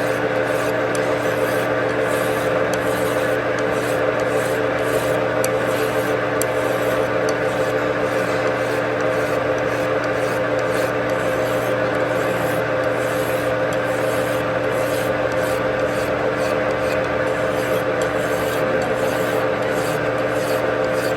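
A power tool working metal: a continuous rasping, grinding sound over a steady motor hum, running evenly without a break.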